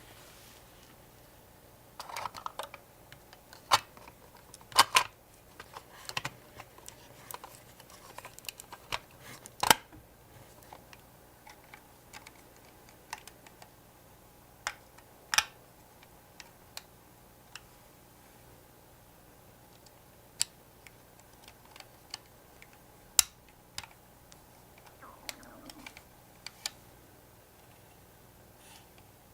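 Irregular light clicks and taps of small tools and parts being handled, with a few sharper knocks (the loudest about five and ten seconds in), over a faint steady hum.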